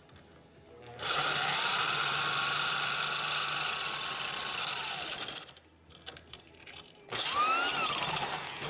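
Impact wrench spinning a blade-sharpening stone against a steel mower blade, in two runs: one of about four seconds starting a second in, and a shorter one near the end. The motor's whine rises and falls in each run.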